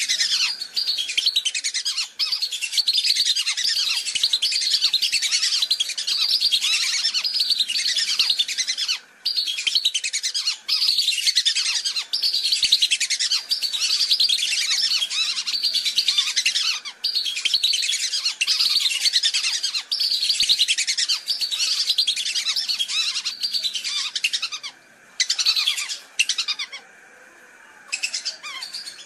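Lure recording of whistling ducks (belibis) calling: a busy chorus of many overlapping high whistles. It breaks off briefly about nine seconds in and drops away for a couple of seconds near the end.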